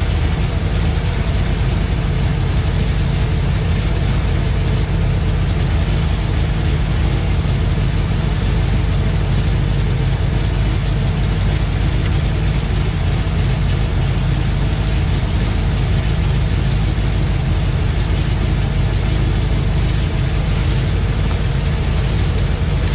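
2017 Chevy SS's 6.2-litre LS3 V8 idling steadily, heard from underneath the car. The engine is left running so the transmission fluid is at operating temperature for the level check.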